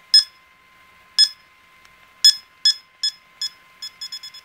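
Short electronic beeps from a Wi‑Fi analyzer app's signal meter on an HTC Wildfire phone, played through the phone's speaker. They come a second or so apart at first, then quicken and become a rapid steady run near the end. The beep rate follows Wi‑Fi signal strength, and the signal is strong by then.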